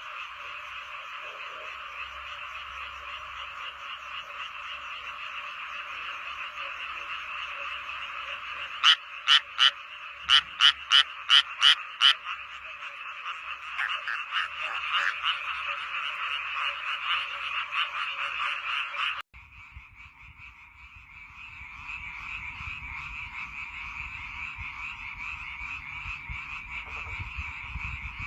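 Dense chorus of frogs calling. About nine seconds in, one nearby frog gives a loud rapid series of about eight calls over three seconds. Just past the middle the sound cuts abruptly to another, quieter frog chorus with a low rumble underneath.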